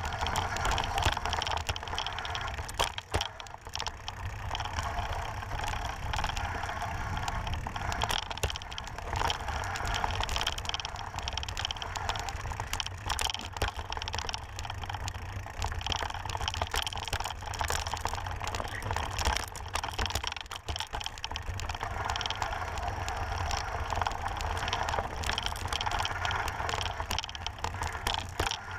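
29er mountain bike riding over a rough dirt trail: a constant dense clatter of small rattles and clicks from the tyres and bike, over a steady low rumble.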